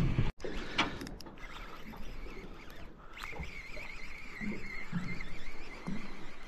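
Baitcasting reel whirring: a thin, wavering whine lasting about two seconds, starting with a click a little after three seconds in. A couple of sharp clicks come near the start, and a few soft knocks follow the whine.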